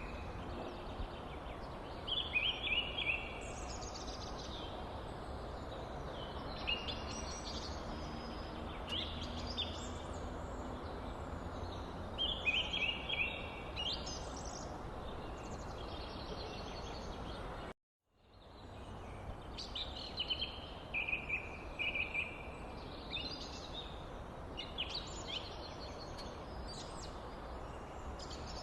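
Small birds chirping and calling over a steady background hiss. The sound cuts out completely for a moment a little past the middle, then returns.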